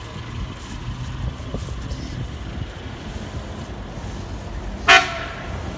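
Steady low rumble of an engine and street traffic, with one short, loud horn blast about five seconds in.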